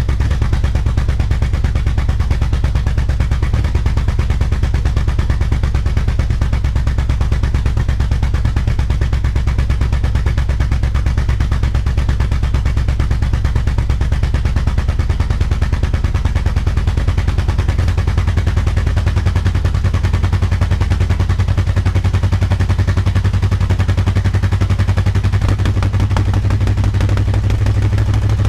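1964 Dodge Custom 880's big-block V8 idling with a loud, rapid train of exhaust pulses. The idle note rises a little about two-thirds of the way through.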